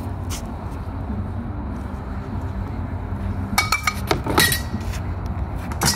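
A quick flurry of sharp metal clashes with a short ringing, from sword blades striking each other and a frying pan used as a buckler during a sparring exchange. It comes after a few seconds of low rumble, with one more clash near the end.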